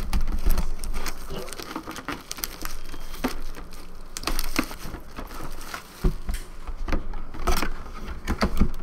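Plastic shrink-wrap being torn and crinkled off a cardboard box, with irregular crackles and the knocks and scrapes of the box being handled.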